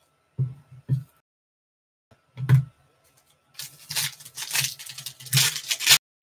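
A few dull knocks, then the crinkly foil wrapper of a trading-card pack being torn open and peeled back by hand, a dense crackling rustle through the second half.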